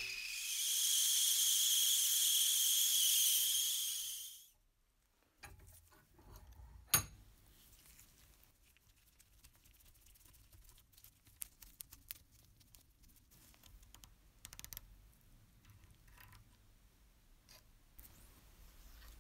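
Gas torch flame hissing, cut off abruptly about four and a half seconds in. Then faint clicks and taps of rusty metal parts being handled, with one sharper click about seven seconds in.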